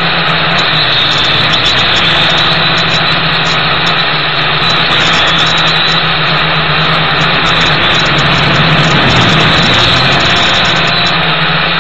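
Gptoys Aviax F2C toy quadcopter's electric motors and propellers buzzing steadily in flight, heard through its own onboard camera, with wind noise on the microphone.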